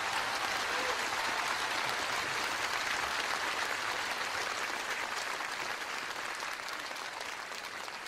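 Audience applauding steadily, slowly dying down toward the end.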